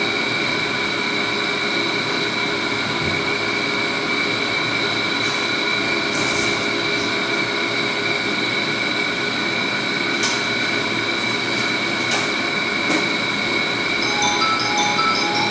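Fire alarm sounding continuously: a steady ring made of several high tones over a rattling hiss. Short high beeps in a stepping pattern come in over it near the end.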